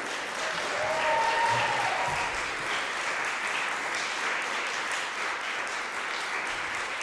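Audience applauding steadily at the close of a live classical performance. About a second in, a single voice briefly calls out over the clapping.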